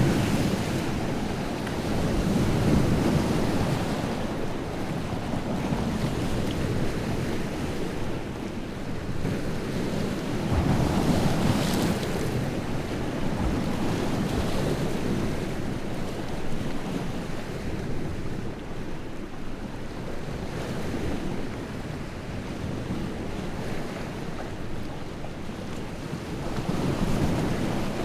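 Wind-driven lake waves breaking and washing on the shore in slow, repeated swells, the biggest crash about eleven seconds in. Wind buffets the microphone throughout.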